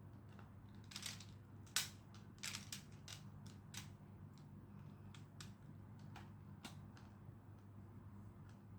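Plastic magnetic building tiles being handled and snapped together, a run of light clicks and taps, thickest in the first few seconds and sparser later, over a steady low hum.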